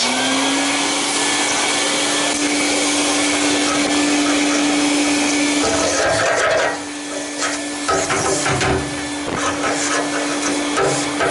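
Vacuum cleaner running with a steady whine, vacuuming out a furnace during service. About halfway through the sound dips and scattered knocks and clatters come in, from the nozzle working against the furnace's metal.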